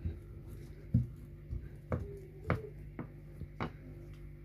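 A rolling pin and hands working a sheet of stiff dough on a board: about five sharp, irregular knocks and taps over a low steady hum.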